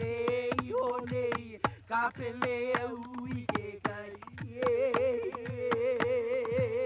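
Hawaiian hula chant: a single voice intoning on one held pitch, with a wavering vibrato about five seconds in, over steady struck percussion beats about two to three a second.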